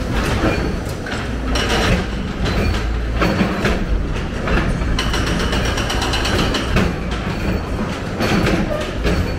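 Hyundai 290 crawler excavator's diesel engine running steadily under load while its bucket works against a brick wall and rubble, with irregular knocks and clatter of masonry and metal. A high metallic squeal joins about halfway through.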